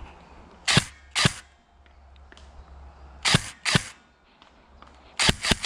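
G&G PCC9 airsoft electric gun firing semi-automatic shots: two about half a second apart, two more a couple of seconds later, then a quick string of three or four near the end.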